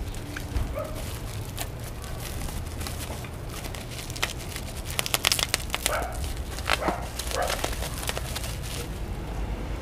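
Clear plastic packaging crinkling and crackling as a new car horn is handled and unwrapped by hand, the crackles thickest in the second half.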